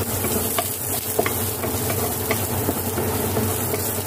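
Chopped garlic sizzling in hot oil in a nonstick wok, stirred with a wooden spatula that scrapes and taps the pan in short, irregular strokes. A steady low hum runs underneath.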